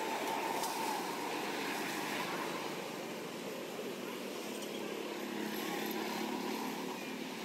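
Steady background noise: an even hiss and drone with no distinct event.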